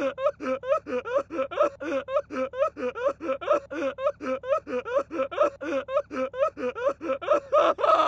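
A person's voice in a long, even run of quick wordless syllables, about five a second, laughing.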